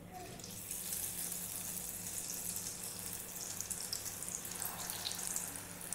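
Batter-coated carrot pieces sizzling as they are dropped into hot oil in a kadai for deep-frying; the sizzle comes up about half a second in and keeps going steadily, full of small crackles.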